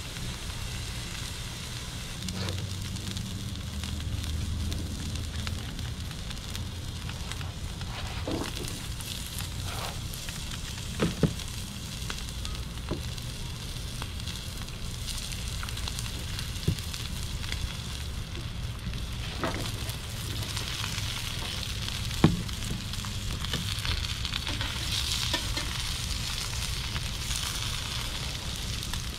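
A thick New York strip steak sizzling steadily on a Blackstone griddle. The sizzle grows brighter in the second half as oil and fries go onto the hot plate, and a few sharp clicks break in.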